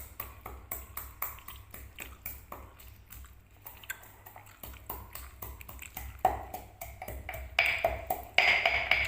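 Spices being pounded for rica-rica paste with a pestle in a mortar: repeated sharp strikes, about three a second, that get louder and ring from about six seconds in.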